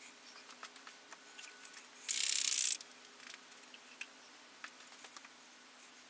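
Light scratching and tapping of a small hand tool against a corrugated metal roller-shutter door, with a short sharp hiss of air, the loudest sound, about two seconds in. A faint steady hum runs underneath.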